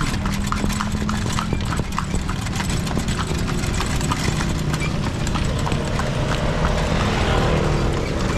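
Kalesa horse's hooves clip-clopping on the street at a steady trot, about four hoof strikes a second, over a steady low rumble.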